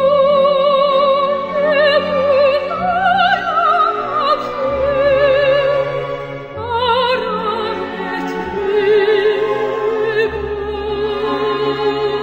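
Music: a slow melody of long held notes with wide, even vibrato over a sustained low accompaniment.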